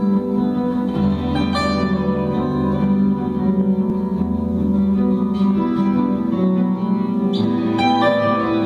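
Recorded music played through Avantgarde Zero 1 horn loudspeakers, heard through a phone's microphone: sustained chords with plucked-string notes, with a deep bass line coming in about a second in.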